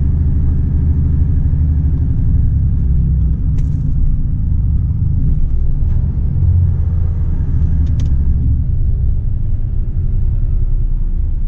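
Volvo FH 460 truck's 13-litre six-cylinder diesel engine running steadily at low road speed, a deep, even drone with road noise. A few faint clicks stand out now and then.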